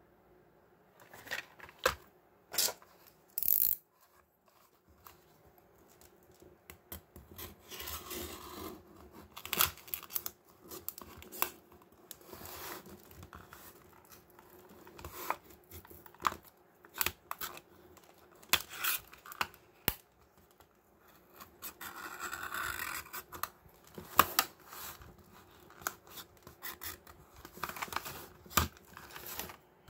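Snap-off utility knife blade cutting a clear plastic blister away from a cardboard toy-car card: irregular scrapes, crackles and clicks of the plastic, with a few longer scraping strokes.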